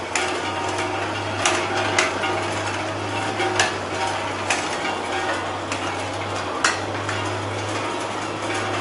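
Nutcracker with shell separator running with a steady low motor hum, under a continuous rattle of cracked nuts and shells. Sharp clicks come about once a second as pieces drop onto the cardboard tray.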